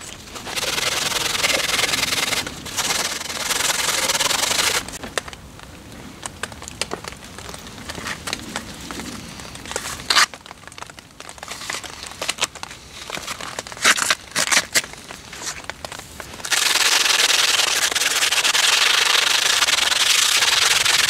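Coarse 40-grit sandpaper rubbed over a hand-carved wooden piece: long stretches of steady, scratchy sanding, with a quieter middle stretch broken by a few sharp clicks.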